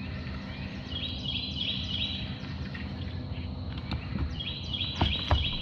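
A songbird singing runs of short, quickly repeated high notes, twice, over steady outdoor background noise, with a couple of sharp clicks near the end.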